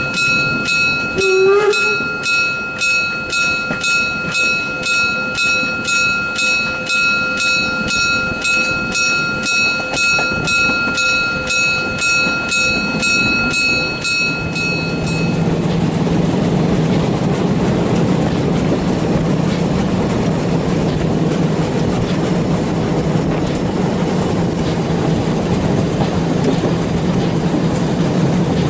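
Narrow-gauge steam locomotive 99 731 running, its exhaust chuffing at about two beats a second with a steady high tone over it; about halfway through the chuffing and the tone stop and give way to the steady rumble of the train rolling along.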